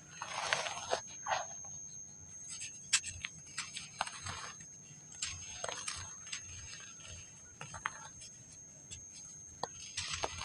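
Dry packed sand crumbling and crunching in irregular bursts, with sharp crackles and clicks as clumps break apart.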